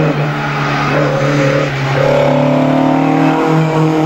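Ford Escort Mk2 rally car approaching at full throttle, its engine note climbing steadily in pitch as it accelerates. A steady low drone runs underneath.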